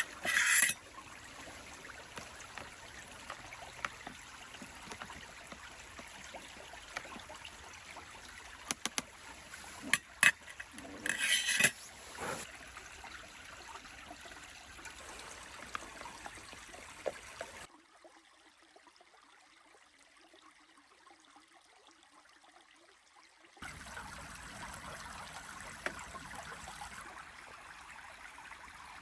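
Stream running steadily, with scattered knocks and clicks and two brief louder rustling scrapes, one at the start and one about eleven seconds in. The water sound drops away for about six seconds past the middle, then returns.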